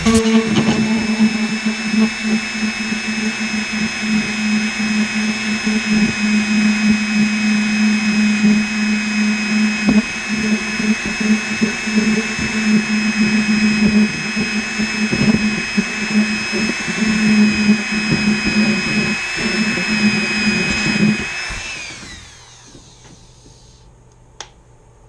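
Plug-in Dremel rotary tool running steadily with a high whine, spinning 3 mm filament against the seam of two 3D-printed parts to friction-weld the plastic. About 21 seconds in it is switched off and winds down.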